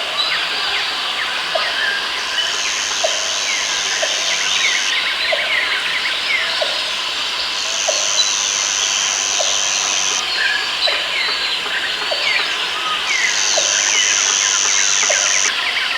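Rainforest ambience: many birds chirping and whistling over one another. A high insect buzz comes and goes in spells of about two and a half seconds, and a short low call repeats a little more often than once a second.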